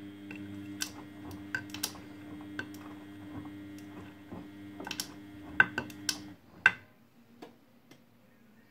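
Front-loading washing machine tumbling two jackets in heavy suds: a steady motor hum as the drum turns, with many sharp clicks and knocks from the tumbling laundry. The drum stops about six seconds in, followed by a few last clicks.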